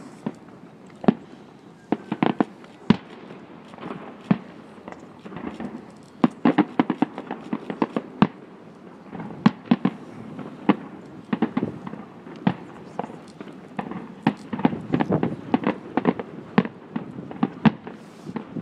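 Aerial firework shells bursting: a rapid, irregular run of sharp bangs and crackles over a continuous low rumble, thickest about six to eight seconds in and again from about fourteen seconds on.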